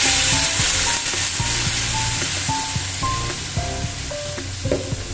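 Water hissing and sizzling as it hits the hot oil and fried potatoes and brinjal in an aluminium kadai, the hiss slowly dying down, while a metal spatula stirs the pan. Light background music plays under it.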